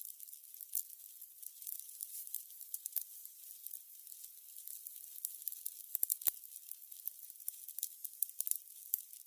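Candles burning: a steady high hiss with a constant scatter of fine crackles and pops, and a couple of sharper pops about three and six seconds in.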